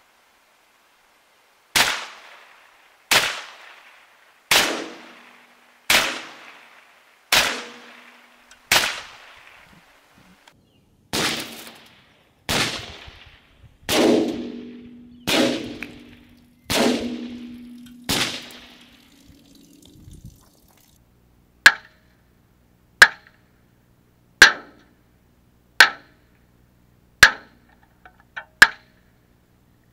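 Ruger 10/22 semi-automatic .22 LR rifle firing Aguila Interceptor rounds into a sheet-steel truck door. Three runs of six evenly spaced shots, about one every 1.4 seconds. The first two runs are cracks with a long fading tail, and the last six are sharper cracks with a short metallic ping.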